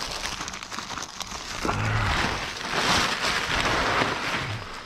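Rustling, crinkling and scraping of construction debris being handled and loaded, in uneven swells, with a short low vocal sound falling in pitch about two seconds in.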